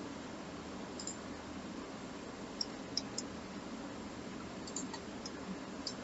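A handful of faint, sharp clicks from a computer mouse and keyboard, scattered and some in quick pairs, over a steady low microphone hiss and hum.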